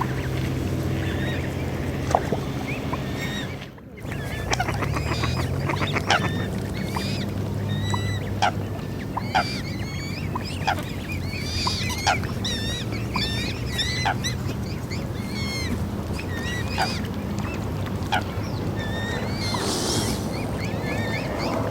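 Waterfowl calling and honking repeatedly over a low, steady drone, with short sharp knocks among the calls. The sound drops out briefly about four seconds in.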